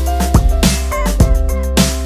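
Background music with a steady beat and a deep, sustained bass line.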